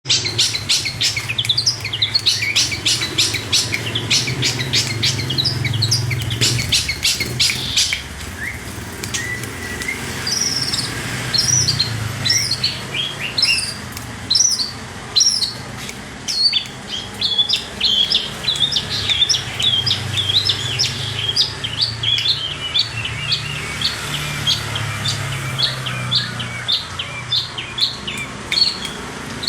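Long-tailed shrike (cendet) singing vigorously: a fast, dry chatter of rapid high notes for about the first eight seconds, then a long run of repeated short, high, falling whistled notes, roughly two a second.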